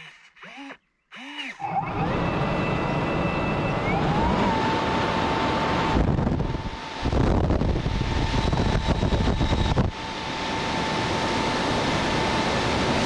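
Radio-controlled hovercraft's electric ducted fans running: a steady loud rushing with a high whine, starting about two seconds in and dipping briefly twice.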